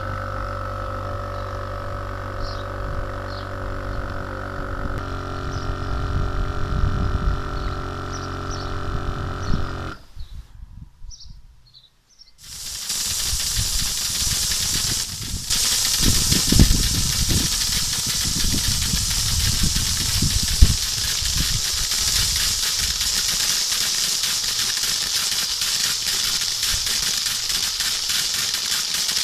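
An electric motor on a foam-spraying unit hums steadily, shifting pitch about five seconds in, and stops about ten seconds in. From about twelve seconds a lance sprays foamy water onto pavement and a stone wall with a steady loud hiss.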